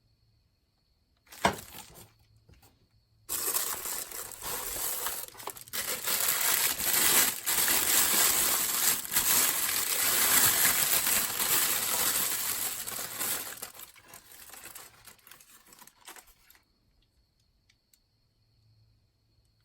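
Packaging being handled and crinkled for about thirteen seconds, with a single sharp knock shortly before it starts.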